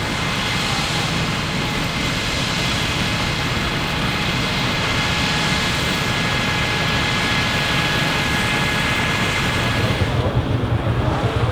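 A Deutz F3L514 air-cooled three-cylinder diesel tractor and the Claas Super pull-type combine it drives, running steadily while threshing wheat, with a dense mechanical din and steady high whines from the threshing machinery. Near the end the high whine fades and a lower, uneven rumble grows louder.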